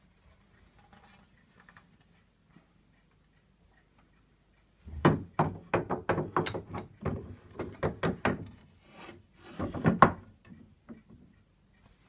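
A quick, irregular run of sharp wooden knocks and clacks, about three a second, from about five seconds in until near the end: the walnut case and fittings of a George Woods reed organ being handled.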